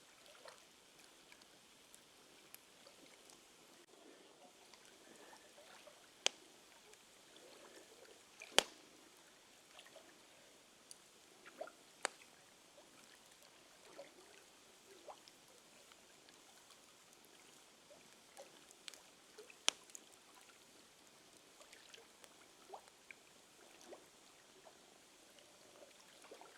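Wood fire crackling: scattered, irregular sharp pops and ticks over a faint steady hiss, with the loudest pops about six, eight and a half, twelve and twenty seconds in.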